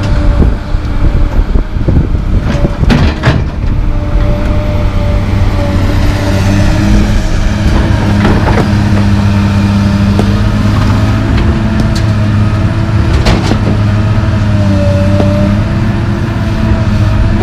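Komatsu PC220LC track excavator's diesel engine working under hydraulic load, with a steady whine over it and the engine note strengthening about six seconds in as the boom swings and lifts. Sharp clanks and bangs from the steel bucket and from broken concrete chunks landing in the dump truck's steel box, a few near the start and several more in the second half.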